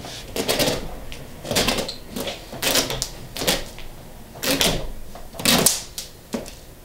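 Decorative gimp braid being ripped off the upholstered outside back of an antique chair: a series of short, irregular tearing and scraping pulls, roughly every half second to a second.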